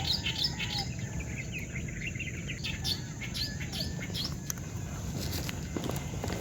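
Small birds chirping in quick, repeated short notes over a steady low background hiss.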